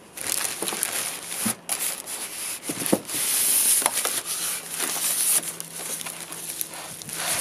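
Plastic packing film crinkling and a polystyrene foam block rubbing against cardboard as the packed scooter stem is lifted in its box, with a few sharp knocks. The rustling is loudest about three seconds in.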